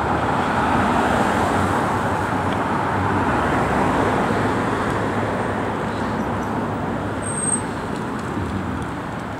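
Road traffic at a street intersection: cars driving past in a steady wash of tyre and engine noise, a little louder in the first few seconds.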